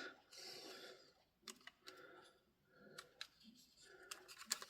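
Faint, scattered plastic clicks and taps as the clip-on back cover of a Sony ICF-SW100 pocket shortwave radio is pressed into place, with a small cluster of clicks near the end as it snaps down.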